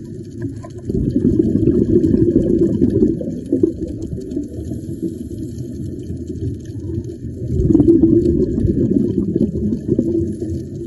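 Muffled underwater bubbling and rumble of scuba exhaust bubbles from a diver's regulator, swelling twice with exhalations, about a second in and again about eight seconds in.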